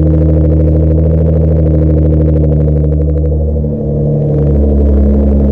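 Nissan GT-R's twin-turbo V6 running at a steady cold idle, warming up just after its first start following six months of winter storage, with a brief dip in level about two-thirds of the way through.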